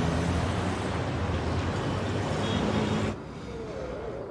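City road traffic: a steady wash of car and truck noise that cuts off abruptly about three seconds in, leaving a much quieter room with a faint held tone.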